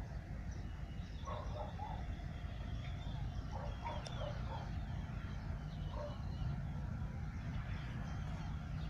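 Short animal calls, a few at a time, over a steady low rumble, with a few faint bird chirps.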